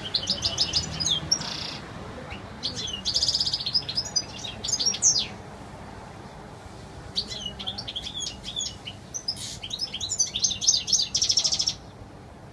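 European goldfinch singing its twittering song in quick phrases with fast trills, pausing briefly near the middle; the song breaks off shortly before the end.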